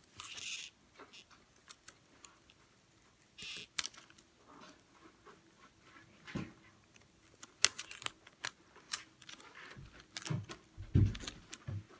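Sticky-note paper strips and tape being handled on a wooden tabletop: scattered taps and clicks with short paper rustles, and a few dull knocks on the table near the end.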